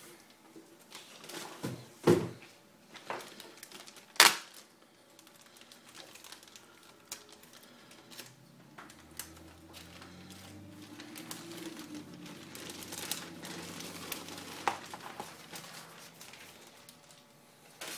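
Plastic wrapping crinkling and rustling as it is pulled off a leather case, with sharp crackles about two and four seconds in.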